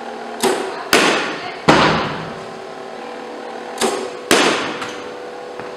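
Softball bat hitting the ball twice, a sharp crack about a second in and again just past four seconds, with a heavier thud shortly after the first hit as the ball strikes the cage. Lighter knocks come just before each hit, over a steady background hum.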